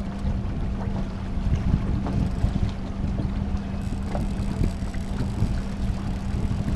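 Boat's outboard motor running steadily at trolling speed, a constant low hum, with wind noise on the microphone.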